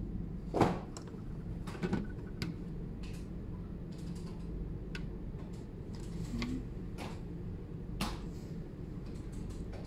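A white plastic fiber optic splitter box being handled and turned over: scattered clicks, knocks and creaks of its plastic shell and lid, the loudest about half a second in, over a steady low hum.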